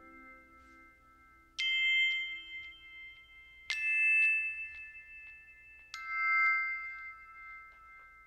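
Background music: three bell-like struck notes about two seconds apart, each ringing on and slowly fading.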